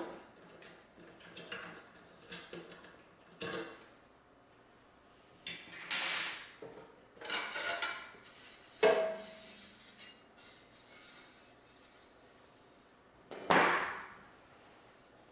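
Metal computer case being taken apart by hand: small clicks and scrapes as a hex screw is backed out with an Allen key and the outer shell is slid off. A sharp metallic clank with a brief ring comes a little before halfway through, and a loud scrape near the end.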